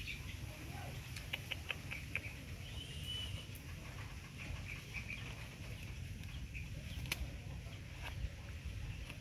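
Soft rustling and clicking from a disposable diaper being fastened and smoothed, over a low steady rumble, with a few short high chirps; two sharp clicks stand out near the end.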